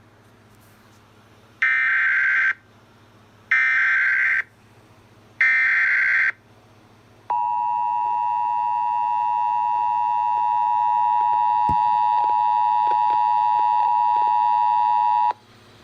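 Emergency Alert System SAME header: three bursts of warbling digital data tones, each about a second long, followed by a steady attention tone of about eight seconds that cuts off suddenly. This tone sequence signals the start of a new alert, here a severe thunderstorm warning.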